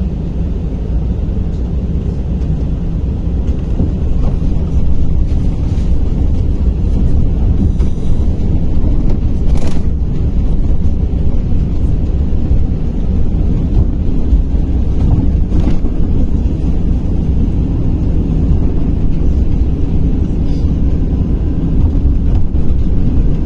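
Cabin noise of a KamAZ-6282 electric bus driving through traffic: a steady low rumble of road and running noise, heard from inside. Two brief clicks come through, about ten and fifteen seconds in.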